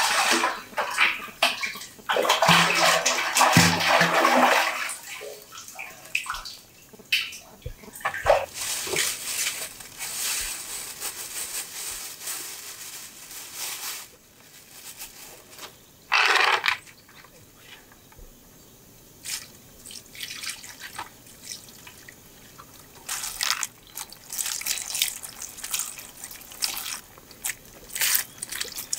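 Water splashing and sloshing as a bucket is drawn up out of a concrete well. Near the end come bursts of water poured from a bucket over wild mushrooms being rubbed clean in a plastic bowl.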